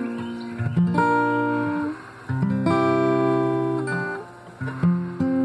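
Guitar playing a slow run of chords, each chord struck and left to ring before the next.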